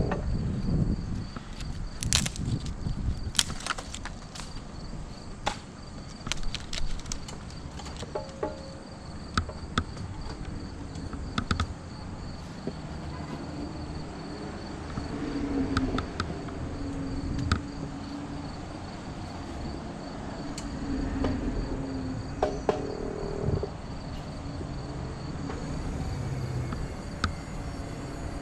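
A steady, evenly pulsing high insect trill, typical of crickets, with scattered sharp clicks and knocks throughout.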